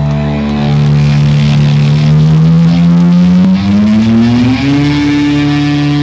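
Loud live electric guitar drone through the concert PA, holding a low note, then sliding up in pitch over a couple of seconds and settling on a higher held note, as the intro before the song kicks in.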